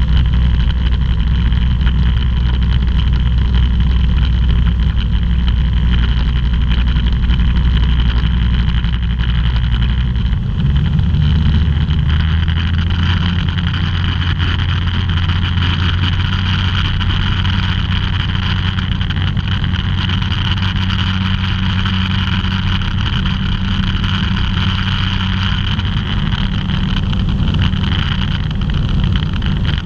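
Ultralight aircraft's engine and propeller running steadily, heard from inside the cockpit. About eleven seconds in the engine note steps up to a higher pitch, and the rush of air grows a little louder.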